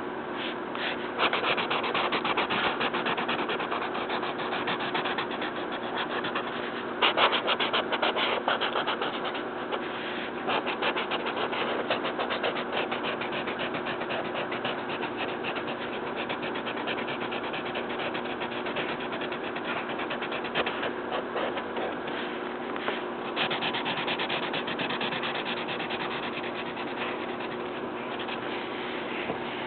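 Colouring on paper: a colouring tool scratching and rubbing in quick, rapid back-and-forth strokes, in louder spells now and then, over a steady low hum.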